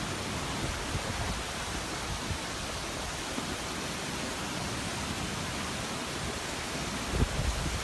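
Steady rushing of heavy rainwater and waterfalls running down a sandstone rock face, with a few low bumps near the end.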